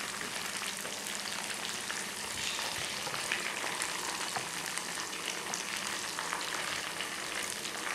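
Breaded meatballs deep-frying in hot oil: a steady sizzle with fine, dense crackling.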